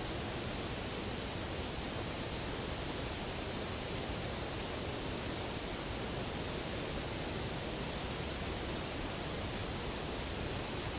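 Steady, even hiss with no knocks or calls standing out.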